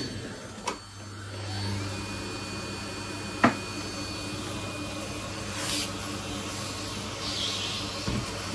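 Podiatry nail drill unit with built-in dust suction running steadily. A faint high whine joins about two seconds in, and there are two sharp clicks, one near the start and one about three and a half seconds in.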